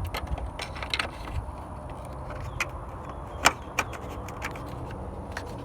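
Sharp clicks and taps of hard plastic headlight parts being handled and snapped back into place, with the loudest click about three and a half seconds in.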